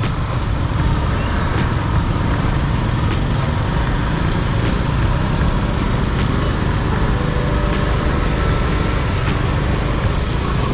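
City street traffic: steady noise of passing vehicle engines and tyres.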